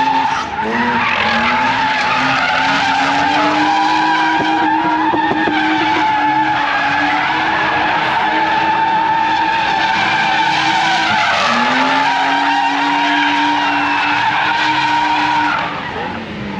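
A car drifting, its engine held at steady revs while the tyres squeal and skid. The revs dip and climb back about half a second in and again about two-thirds of the way through. The sound drops away near the end.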